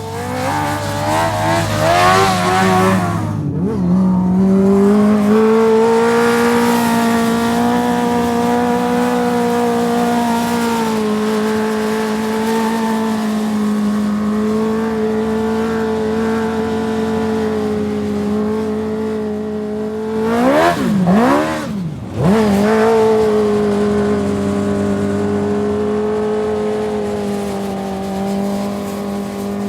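A dirt-track sprint car engine at high revs. Its pitch wavers and climbs over the first few seconds, then holds a steady high note. About twenty seconds in, the revs dip sharply twice and climb back.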